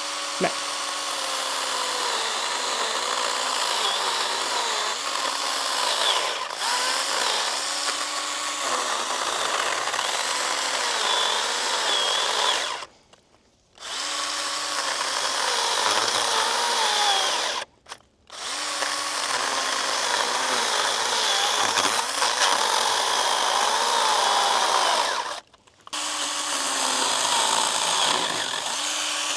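Stihl GTA 26 battery garden pruner (mini chainsaw) cutting through a thick branch. Its electric motor whine sags and recovers again and again as the chain bites under load, and it stops briefly three times.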